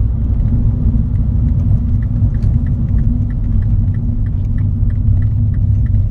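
Inside the cabin of a 2012 Mini Cooper S (R56) on the move: a steady low rumble of engine and road noise. From about two seconds in there is a light, evenly spaced ticking, about three a second.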